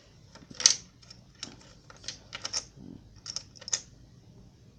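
Small hard plastic toy parts clicking and tapping together as they are handled, in a dozen or so irregular sharp clicks, the loudest about a second in.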